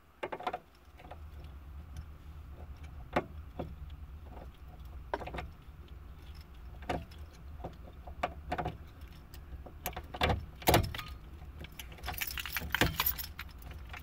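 Metal clicks, knocks and rattles of a car ignition lock cylinder being pushed and worked by hand into its steering-column housing, a small metal rod knocking against it. Sharp single clicks are scattered throughout, with a quick run of rattling about twelve seconds in; the barrel fails to seat.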